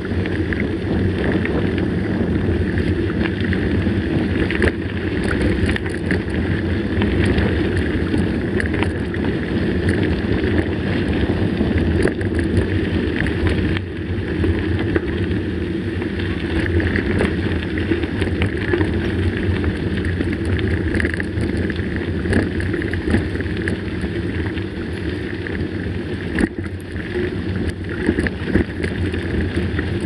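Mountain bike tyres rumbling steadily over a dirt road, with wind noise on the microphone and small rattles from the bike.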